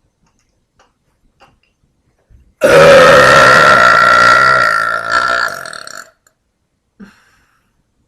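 A woman's long, loud burp, held for about three and a half seconds and starting about two and a half seconds in, with a strong pitch that fades toward its end.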